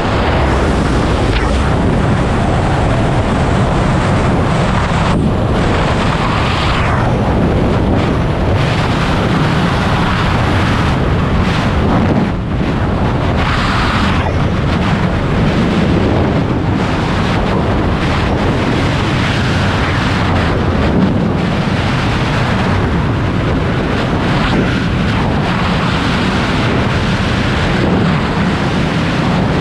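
Freefall wind rushing over a skydiver's head-mounted camera microphone: a loud, steady rush of wind noise.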